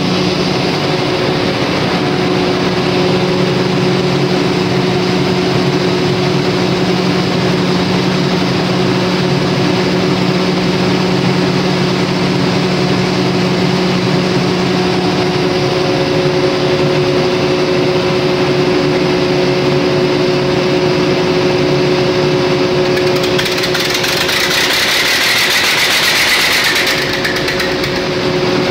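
Perkins 4006 750 kVA diesel generator engine running steadily and loudly, its note shifting slightly about halfway through; the title gives its injector timing as wrong. A hiss lasting about four seconds rises over it near the end.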